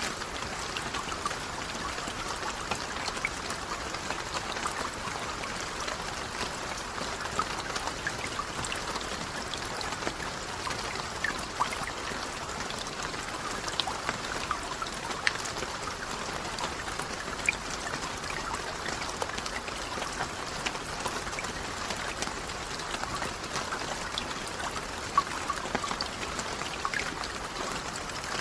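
Steady rain with many individual drops pattering and ticking, a few drops louder than the rest, over a running trickle of water.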